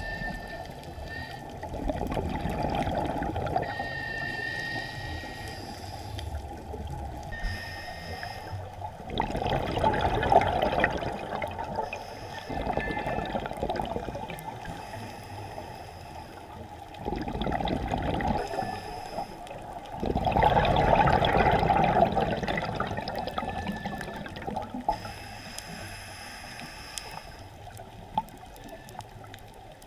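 Scuba regulator breathing underwater: a surge of bubbling exhaust every few seconds as the diver breathes out, with quieter stretches between breaths.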